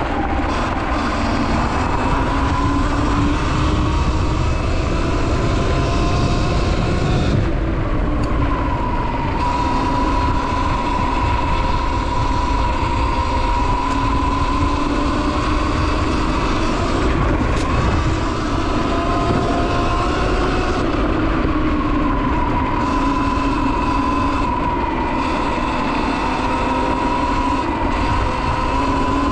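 Sur Ron X electric dirt bike cruising on a gravel trail at about 20 mph. The motor and drivetrain give a steady whine that rises and falls slightly as the speed changes, over loud wind and tyre noise.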